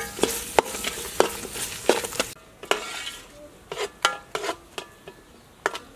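A metal ladle stirs chopped ginger, garlic, galangal and shallot through a hot, sizzling sauce in a metal pot, scraping and clinking against the pot. The sizzle stops about two seconds in, leaving separate ringing metal clinks.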